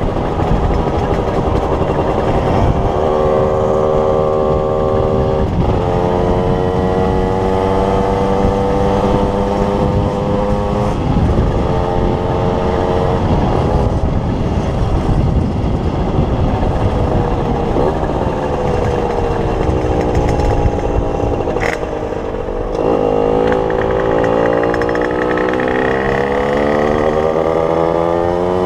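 Derbi Xtreme supermoto's two-stroke engine through a Voca Racing Rookie expansion-chamber exhaust, under way. The revs climb and drop back at several gear changes, then fall away as it slows and climb again near the end.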